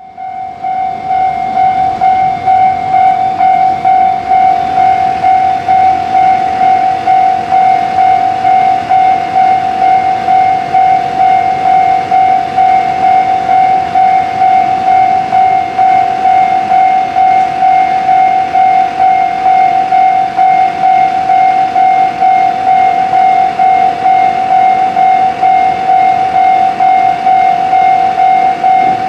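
Japanese level crossing warning bell ringing, a steady electronic tone pulsing in a quick even rhythm, over a low background rumble.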